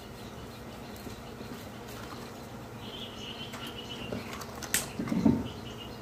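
Quiet handling of a spoon and aluminium pan while chilli powder is sprinkled over potatoes and gram flour: one sharp click near the end, followed at once by a short low knock and scrape. Faint high chirping is heard in the background.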